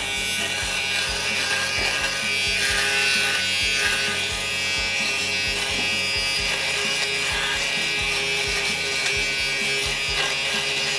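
Nova electric lint remover running steadily, its small motor whirring as the cutting head is rubbed over a coat collar, under background music.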